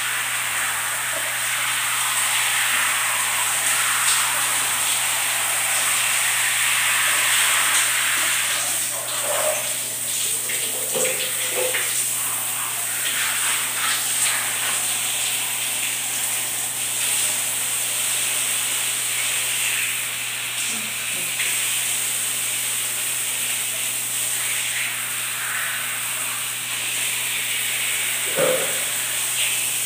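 Overhead shower running, water spraying steadily and splashing in a tiled bathroom.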